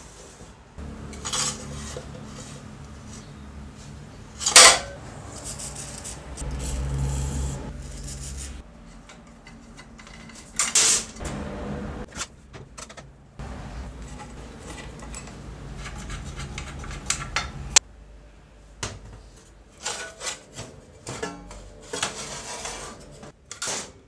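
Rusty metal parts of an old Hitachi circular saw clanking and clinking as the saw is handled and its base plate and guide bar are worked loose. There are several sharp metallic knocks, the loudest a few seconds in, and clusters of lighter clicks near the end.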